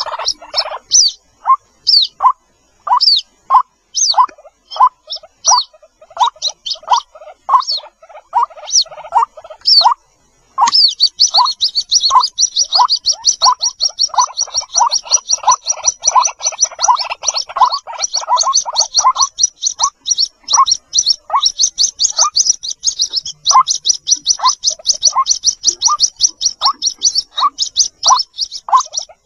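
White-breasted waterhen chicks peeping continuously to call their mother: short, high, downward-sliding peeps repeated over and over with lower calls between them. About ten seconds in, after a brief gap, the high peeps become a fast, dense run.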